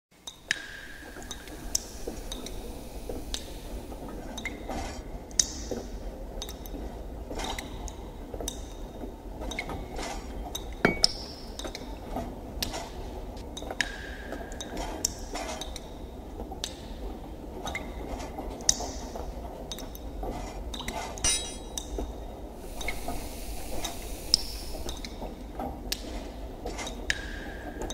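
Ship's-brig ambience sound effect: scattered water drips and metallic clinks over a steady low rumble. The pattern repeats about every 13 to 14 seconds, as a loop.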